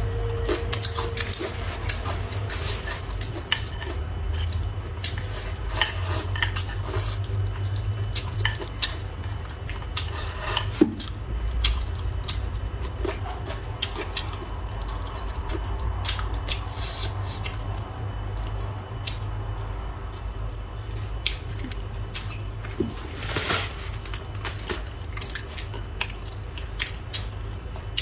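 Eating utensils clicking and scraping against bowls and dishes during a meal, many short irregular clinks, one louder knock about eleven seconds in, over a steady low hum.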